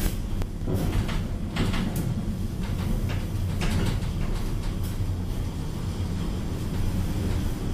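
1993 Tepper inclined glass elevator cab running along its track: a steady low rumble with scattered clicks and rattles.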